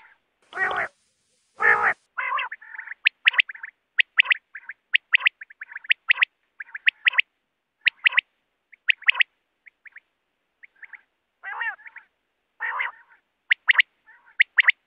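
Quails calling: short sharp clipped notes, often in pairs, repeated about once a second. A few longer, buzzier, lower calls come near the start and again about twelve seconds in.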